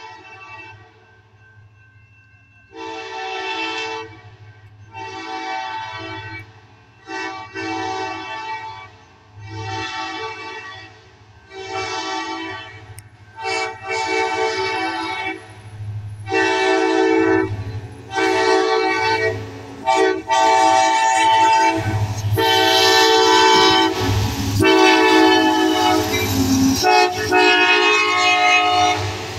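Kansas City Southern diesel locomotive sounding its multi-chime air horn in about a dozen blasts, growing louder as the train nears. The horn is the warning signal for the road crossing ahead.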